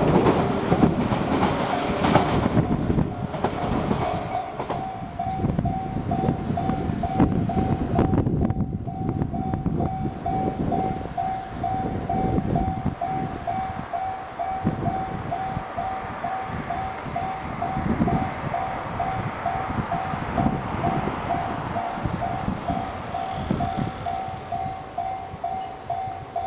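The Twilight Express Mizukaze, a Class 87 diesel-electric hybrid train, rumbling and clicking over the rail joints as it passes, fading away over the first ten seconds or so. The level crossing's warning bell dings steadily about twice a second, and it stands out clearly once the train has gone.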